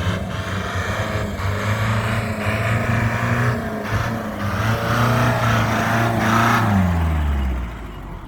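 Willys Jeep CJ engine revving hard under load, climbing a muddy off-road slope. The revs fall away about seven seconds in.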